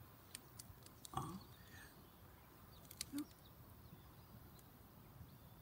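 Near silence: faint outdoor ambience, broken by a brief soft sound about a second in and a few faint clicks.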